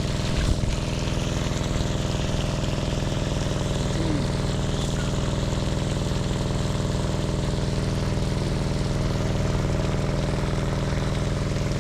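Generator engine running steadily at constant speed, powering the borehole pump, with a brief low thump about half a second in.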